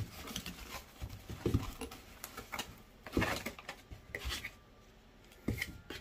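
Scraping, rustling and knocks as a plastic washing-machine water inlet valve is worked out of its foam packing inside a cardboard box.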